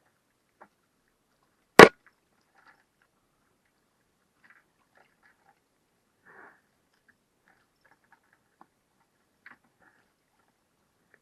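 A single sharp knock about two seconds in, among faint scattered ticks and clicks.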